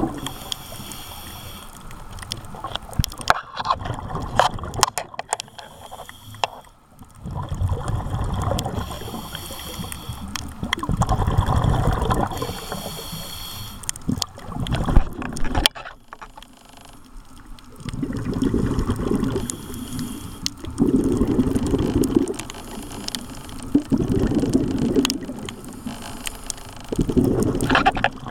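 Scuba diver breathing through a regulator underwater: a hissing inhale, then a burst of bubbling exhaust, repeating every few seconds. Scattered sharp clicks come a few seconds in.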